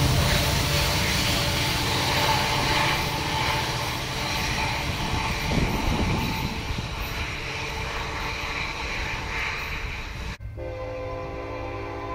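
Diesel freight locomotives and a loaded coal train rumbling past and fading as they pull away, with steady horn-like tones through the noise. About ten seconds in the sound cuts abruptly to a cleaner, distant multi-tone train horn chord.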